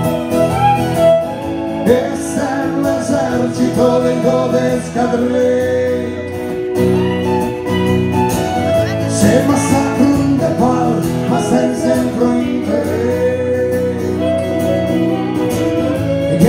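Live acoustic band playing: strummed acoustic guitar chords with a violin carrying a wavering, gliding melody over them.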